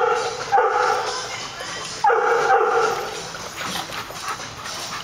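Dogs play-wrestling, one giving drawn-out whining barks. One call ends just as the sound begins, then two more come about half a second and two seconds in.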